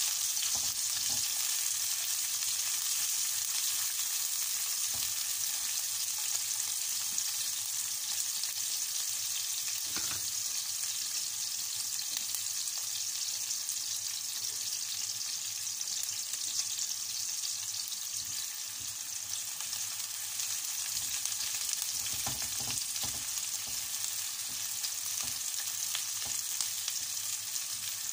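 Chopped onion and garlic sizzling steadily in hot oil in a wide metal pan, with a wooden spatula stirring through them at times and knocking against the pan a few times, once about ten seconds in and again a little after twenty seconds.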